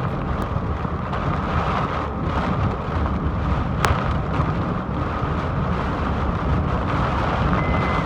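Heavy rain pelting a moving car in a thunderstorm: a steady, loud downpour with road and wind rumble underneath, and one sharp click about four seconds in.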